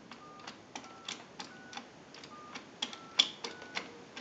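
Payphone touch-tone keypad being dialled: a run of short dual-tone beeps, about one every half second, each with a key click. The tones come through an amplified pickup on the handset receiver while the dialled digits are checked on a line analyzer.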